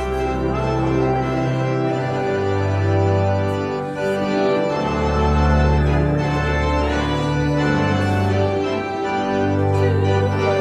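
Organ playing slow, held chords, the bass note changing every second or two.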